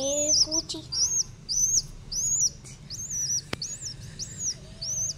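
Young hand-fed bird chirping over and over: high, arching chirps, about two a second.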